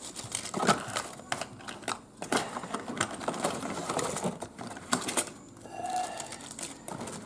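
Rapid, irregular clicking and clattering of small hard objects being handled and moved about on a table.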